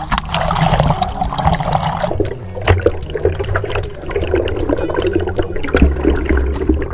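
Water sloshing, gurgling and bubbling over a camera dipped in and out of the sea at the waterline, with a steady run of small splashes and pops.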